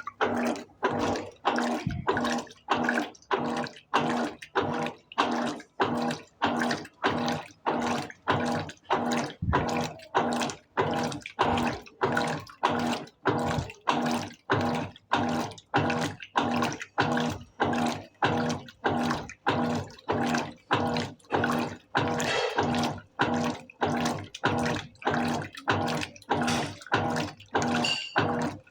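Colormaq LCA14A 14 kg top-loading washing machine agitating a load of blankets: water sloshing in an even rhythm, about three strokes every two seconds, over a steady motor hum.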